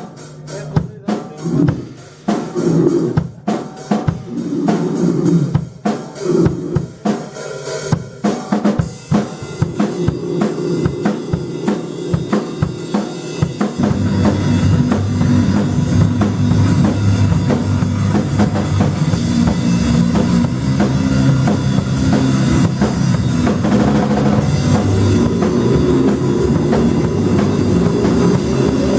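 Live rock band: the drum kit plays alone at first, separate hits and fills on kick and snare with gaps between, then about halfway through the other instruments come in with sustained low notes and the full band plays on, loud and steady.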